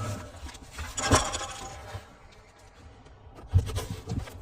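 Handling noise from a delivery box and its packaging: scraping and clattering, with a louder scrape about a second in and a dull thump about three and a half seconds in.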